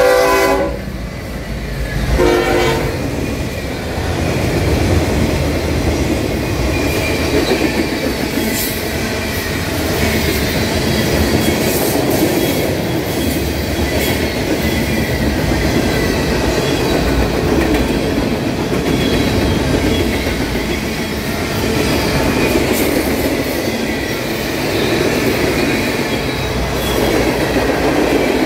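Norfolk Southern freight train passing close by: the locomotive horn ends about a second in and gives one more short blast about two seconds in, then the steady rumble and clatter of freight car wheels over the rail joints as tank cars, hoppers and boxcars roll past, with now and then a thin wheel squeal.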